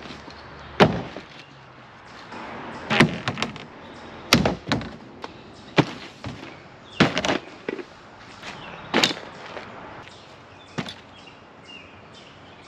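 A series of sharp knocks and clacks with softer thuds among them, about ten at uneven intervals, as kayak camping gear and a two-piece kayak paddle are dropped onto the ground one item at a time.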